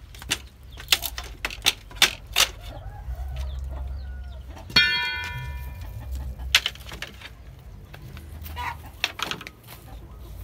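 Chickens clucking, with scattered sharp knocks. About halfway through comes one louder knock that rings briefly, like struck metal.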